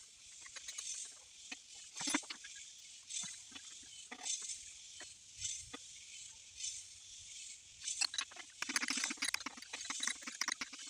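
Sped-up sounds of hand tools working intake manifold bolts: scattered sharp clicks and clinks of a ratchet and wrench over a high hiss, turning into a dense run of rapid ticking about nine seconds in.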